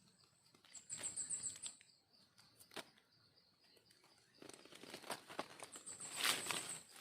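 Dry leaf litter rustling and crunching in irregular bursts, loudest near the end, as the forest floor is walked through and brushed aside. A high, rapid trill sounds twice, about a second in and near the end.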